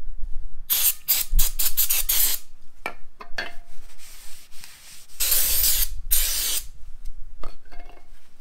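Aerosol spray can sprayed over a steel brake disc rotor: a quick series of short hissing spurts, then two longer blasts about five seconds in.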